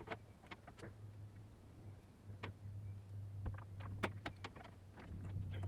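Small scattered clicks and taps from handling the bare phone main board and its tiny connectors, a few clustered together in the middle, over a low steady hum that comes and goes.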